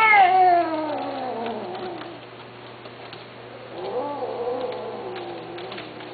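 A cat giving two long, drawn-out meows: the first falls in pitch over about two seconds, the second starts about four seconds in, rising briefly and then slowly falling.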